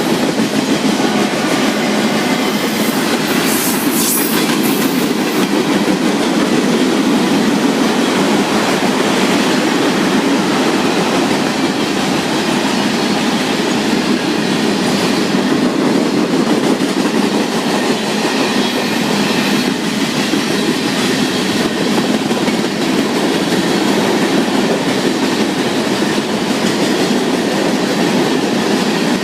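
Freight train cars rolling past, with a steady loud rumble and clatter of wheels on rails and a brief high screech about four seconds in.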